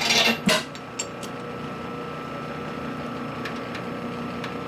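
Metal clatter of a steel chuck key being handled and fitted into a four-jaw lathe chuck in the first half-second, then a couple of sharp clicks about a second in. Under it runs a steady machine-shop hum.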